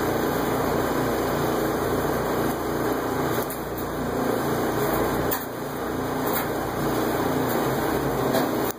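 A steady machine drone runs throughout, with a few faint clicks as small metal landing-gear retract parts are handled and fitted together.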